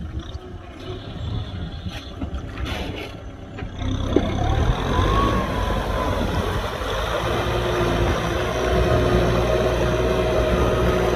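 Kubota M6040SU tractor's diesel engine running under work, growing louder about four seconds in and then holding steady with a low hum, with a faint steady whine over it in the second half.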